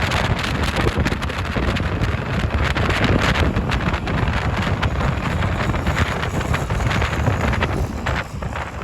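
Road traffic noise, heavily buffeted by wind on the microphone, with a loud steady low rumble that eases slightly near the end.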